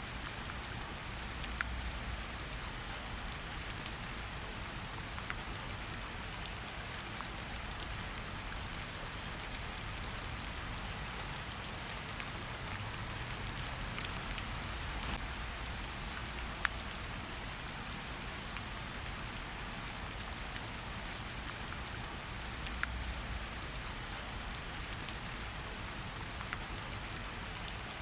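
Steady rain falling on a surface, with many scattered sharp drop hits.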